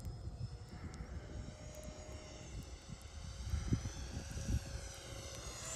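Faint whine of the FMS Futura's 64 mm electric ducted fan as the jet flies at a distance, its pitch bending up and down as it manoeuvres. Under it runs an uneven low rumble. The whine grows louder near the end as the jet comes closer.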